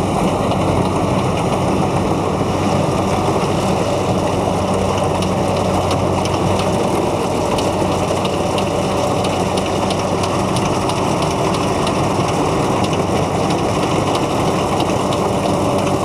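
Kubota DC105X rice combine harvester working at full speed as it cuts rice: a steady diesel engine hum under a dense, even hiss of the cutter bar, threshing drum and straw.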